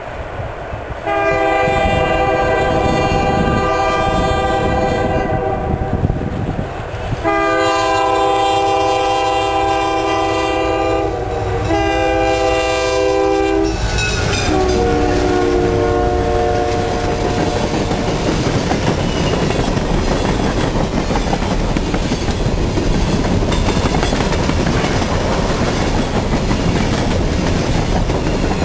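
Diesel freight train led by MLW M636 and M630 locomotives sounding its air horn in the grade-crossing pattern, long, long, short, long, with the last blast dropping in pitch as the locomotives pass. Then the steady rumble and clickety-clack of hopper cars' wheels on the rails as the train rolls past.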